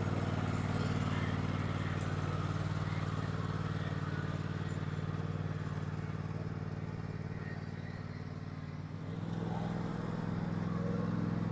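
Small engine running steadily, with a brief drop in level and a change in speed about nine seconds in.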